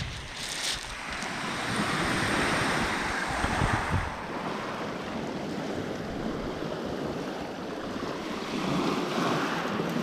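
Small waves breaking and washing up a pebble beach, the surf swelling twice, with wind gusting on the microphone.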